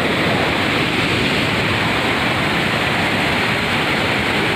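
Muddy floodwater rushing down a hillside in a torrent and pouring over a washed-out road, a loud, steady roar of water.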